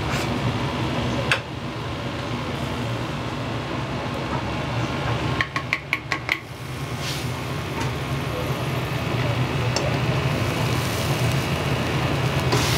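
Restaurant kitchen at work: a steady low hum of burner and extractor under clinks of metal utensils and dishes, with a quick run of five or six clinks about five and a half seconds in.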